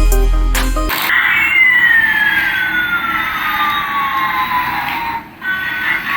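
Electronic background music: a bass-heavy passage cuts off about a second in after two sharp hits, then a single high synth tone falls slowly in pitch over about four seconds, like a siren winding down.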